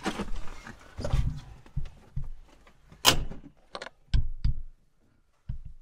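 Knocks, clunks and clicks inside the cab of a Can-Am Defender UTV as the cab door is shut and gear is moved, with one sharp bang about three seconds in and a few lighter clunks after it.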